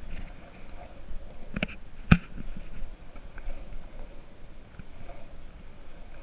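Longboard wheels rolling over rough asphalt, a steady low rumble, with two sharp knocks about one and a half and two seconds in.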